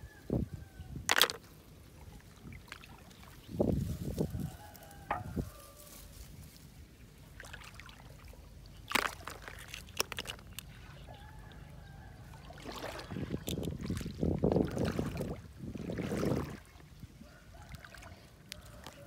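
Hands splashing and sloshing in shallow water, with dripping and a few sharp clicks as snails are picked out and dropped into a plastic bucket. The heaviest splashing comes about two-thirds of the way through.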